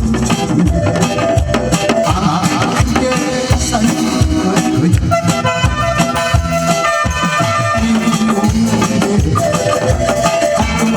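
Instrumental music with a steady beat and a melody line, without singing.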